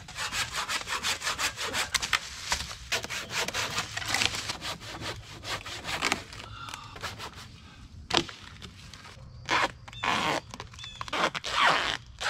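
Duct tape being pulled off the roll and wrapped around a pole: a long run of fast rasping strokes, then from about eight seconds in several short separate pulls.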